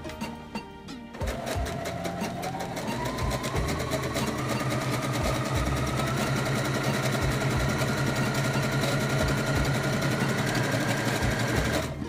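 Brother CS6000i computerized sewing machine stitching a buttonhole with its automatic one-step buttonhole foot. It starts about a second in with a rapid, even needle rhythm, and its motor whine rises slowly in pitch as it speeds up, stopping right at the end.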